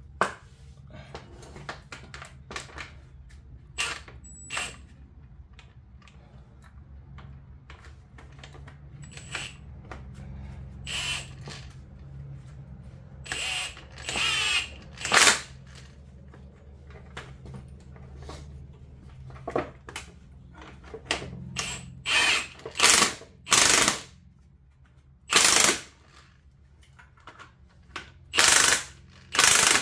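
Power tool run in repeated short bursts, each a second or less, spinning fasteners during a front strut removal on a BMW E46; the bursts get louder and closer together in the second half.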